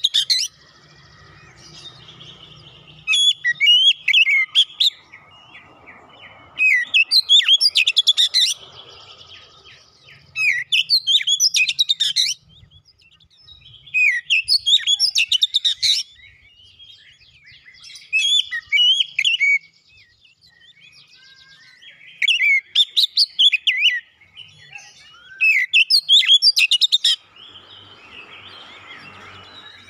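Oriental magpie-robin singing: loud, varied phrases of whistles and chirps in about eight bursts, each a second or two long, with short pauses between them.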